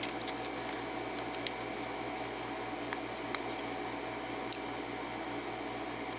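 Small metal lock pins and a handling tool clicking and tapping now and then, as pins are taken out of a disassembled pin-tumbler lock, over a steady low background hum.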